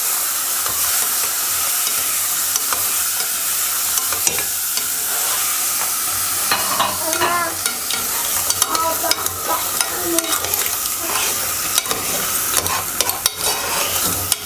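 Frozen seafood mix sizzling in ghee with onion in a pan while a utensil stirs it, clicking and scraping against the pan. The sizzle is a steady hiss.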